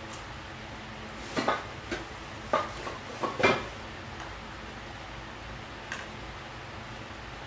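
Dishes and pots clinking and clattering as they are handled, in a quick run of knocks through the middle of the clip and one faint knock later, over a steady low hiss.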